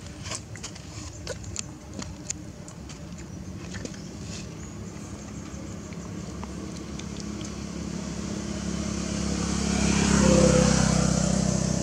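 A motor vehicle going by: its engine grows steadily louder, peaks about ten seconds in, then begins to fade. A few light clicks in the first few seconds.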